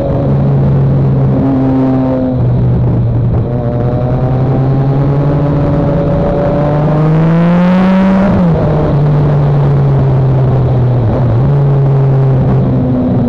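Motorcycle engine running under way, with wind rush over it. The engine note climbs steadily for a couple of seconds from about six seconds in, then drops sharply just past eight seconds and settles back to a steady note.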